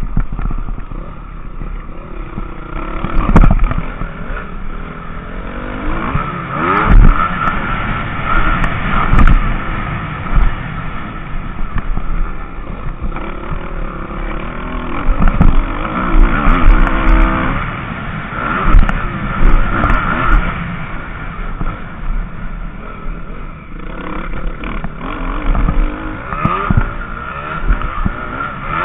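Motocross bike engine heard from on board, revving up and dropping back again and again as it is ridden hard around a dirt track, with sharp knocks from the bike over bumps and landings.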